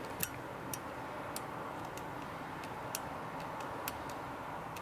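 Rear roof-pillar reading-lamp switch of a 1977 Cadillac Seville clicking as it is pressed over and over, cycling the lamp between its settings. A string of sharp, irregular clicks, about one a second.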